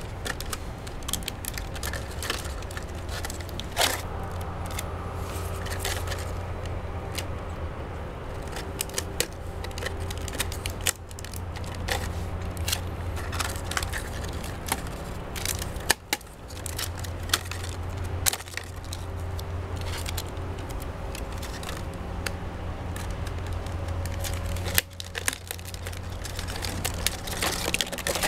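Thin clear PET plastic from a cut-up gallon water jug crinkling and crackling as it is handled and bent, with many irregular sharp clicks. A steady low hum runs underneath.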